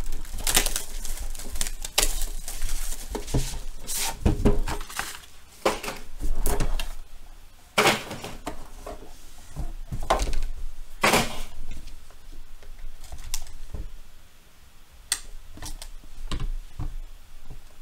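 A cardboard trading-card box being handled and opened: irregular knocks and clicks of the box on the table, with several longer scraping, sliding strokes as the outer sleeve comes off. Near the end a blade works at the box's seal.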